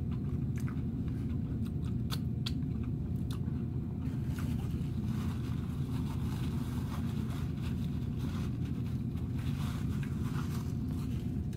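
Steady low mechanical rumble with a faint steady hum above it, with scattered faint crunching and chewing clicks from eating a crispy fish sandwich.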